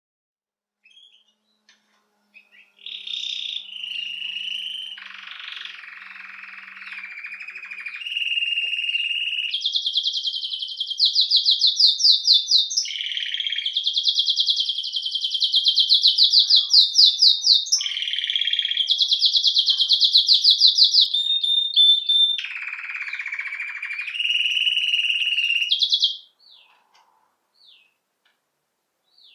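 Domestic canary (Belgian canary) singing one long, unbroken song of about twenty-three seconds, starting about three seconds in: a run of fast trills and rolls that switches to a new phrase every few seconds. A few faint single chirps come before and after the song.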